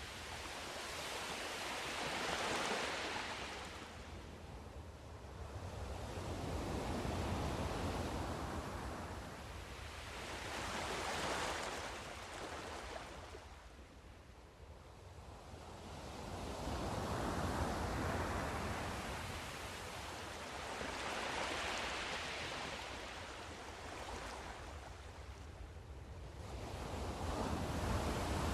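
Sea surf: waves break and wash up the shore one after another, about six in a row, each a rush of noise that swells and fades every four to five seconds, over a steady low rumble.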